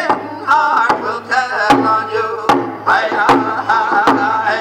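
Men singing a round dance song in unison, with hand drums struck together in a steady beat of a little over one stroke a second.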